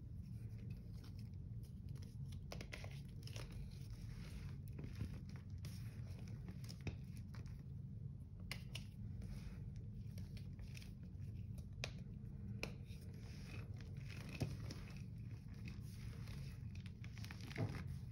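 Hand crumbling, scooping and squeezing dry chunks of Comet cleanser powder in a ceramic sink: many small scattered crunches and crackles as the clumps break, over a low steady hum.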